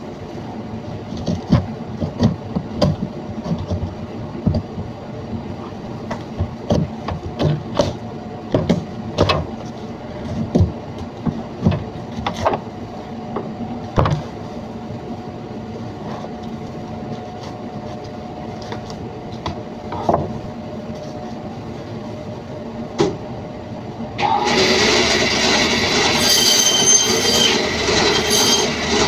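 Lamb carcass being handled and cut on a plastic cutting board: scattered knocks and thuds over a steady low hum. About 24 seconds in, a meat band saw starts up and keeps running with a high-pitched whine, louder than the knocks before it.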